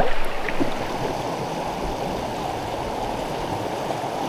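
River water rushing over a shallow, rocky riffle: a steady, even rush of current.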